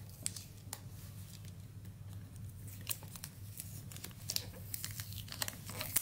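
Faint crinkling and small crackles of thin plastic protective wrap being handled and pulled off a hair dryer, scattered and getting busier near the end.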